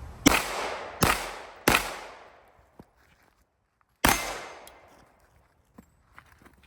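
Four gunshots: three in quick succession within the first two seconds, then a fourth about two seconds later. Each is followed by a long, fading echo.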